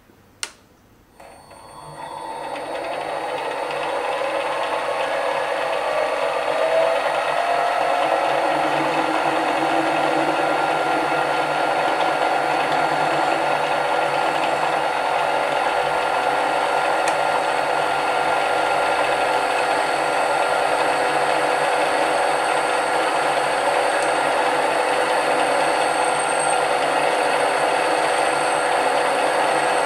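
A click, then a mini lathe's motor spins up with a rising whine over several seconds and runs steadily while a centre drill in the tailstock chuck cuts into the face of a spinning cast-iron bar.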